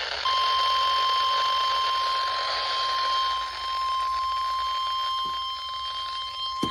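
Weather radio's 1050 Hz warning alarm tone: a single steady tone that begins a moment in and holds unbroken, over the hiss of radio static. It is the alert signal that comes before a weather warning is read out.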